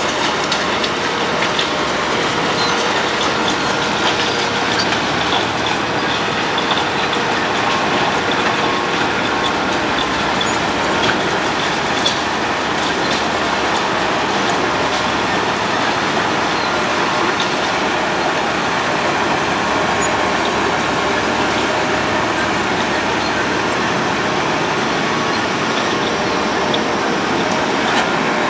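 Road planer (cold milling machine) at work: its diesel engine running steadily while the cutting drum grinds off the asphalt road surface, a steady loud grinding with constant small clicks and clatter.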